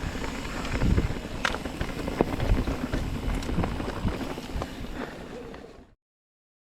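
Mountain bike riding noise: low rumble with scattered clicks and knocks of tyres and bike over a rocky dirt trail. It fades out and cuts to silence about six seconds in.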